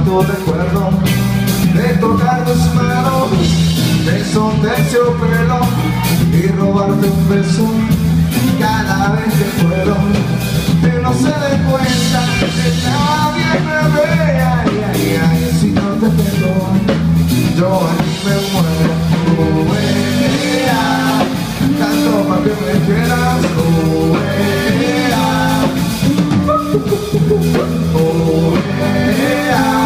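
Live rock band playing loud, heard from the audience: drum kit, bass and guitars with a melodic lead line over a steady bass.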